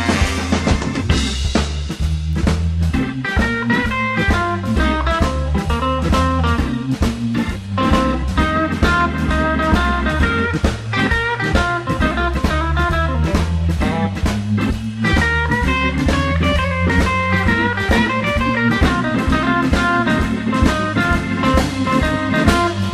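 Instrumental break of a blues band recording: an electric guitar plays a solo of quick notes over a steady bass and drum-kit shuffle.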